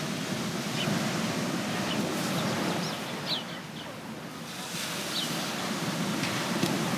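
Ocean surf washing steadily with wind, and a few short high chirps now and then.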